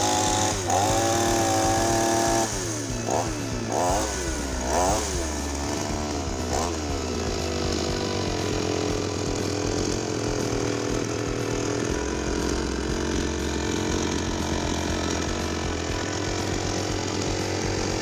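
Two-stroke chainsaw running on its newly fitted bar and chain for a test run. It is held at high revs for a couple of seconds, then revved up and down about four times, and settles to a steady idle from about seven seconds in.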